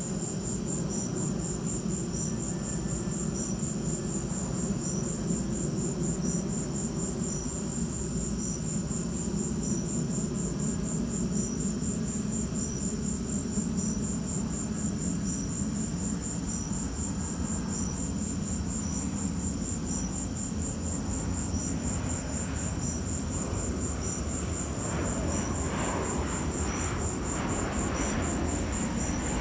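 Crickets chirping steadily: a continuous high trill with regular chirps on top. In the second half an airplane's engine drone comes in and grows louder toward the end.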